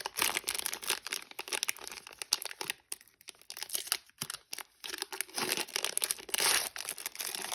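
Cellophane wrapper of a trading-card pack being torn open and crinkled in irregular crackling bursts, quieter in the middle, with a longer rustle near the end.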